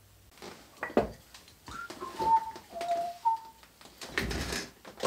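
A person whistling a short tune of about five held notes, falling in pitch and then rising on the last one. Knocks about a second in and a rustling clatter near the end come from hand tools being handled.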